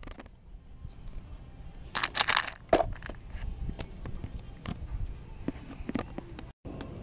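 Scraps of trash rustling and crunching in the plastic body of a Bruder toy garbage truck, with scattered plastic clicks over a low rumble. A louder rustle comes about two seconds in, followed by a sharp click.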